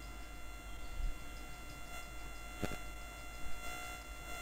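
Steady electrical hum made of several fixed tones, with a single sharp click about two-thirds of the way through.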